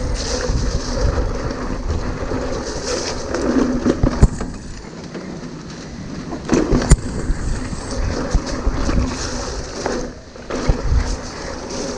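Hardtail mountain bike descending a dirt trail: wind rushing over the microphone, tyres on dirt and the bike rattling, with sharp knocks over bumps, the loudest about four and seven seconds in. The noise eases briefly near ten seconds in.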